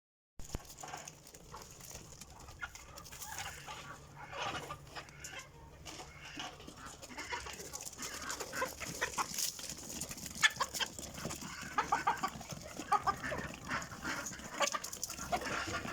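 Chickens clucking in a flock: short calls and clucks overlapping, getting busier partway through.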